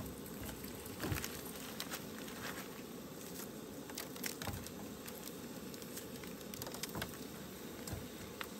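Hot dogs frying in a frying pan: a soft, steady sizzle with many scattered small pops and crackles.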